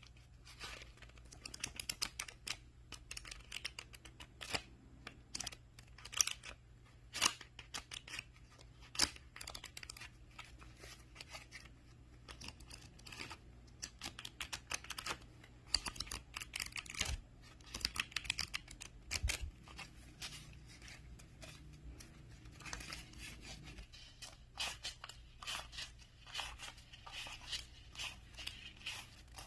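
Paper banknotes being counted by hand, Brazilian real notes flicked and snapped one after another: crisp paper snaps and rustles in quick, irregular runs, some much louder than others.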